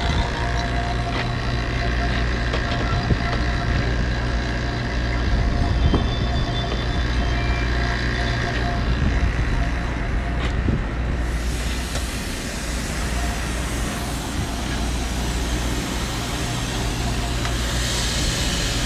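Refrigeration equipment running with a steady low hum and a faint whine. About eleven seconds in the sound shifts and a broad hiss comes in on top.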